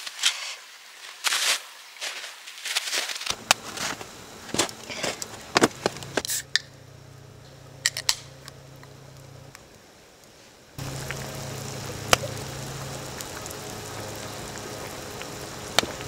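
An aluminium drink can opened by its pull tab: a sharp pop with a short hiss about six seconds in. Scattered crackles and clicks from a wood campfire and from handling come before and after it.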